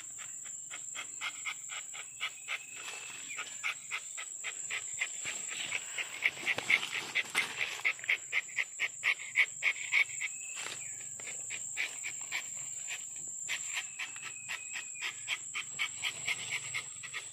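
Rubber-tapping knife shaving a thin strip of bark from a rubber tree's tapping cut, a rapid run of short scraping strokes at about four a second, loudest in the middle. A steady high-pitched insect drone runs underneath.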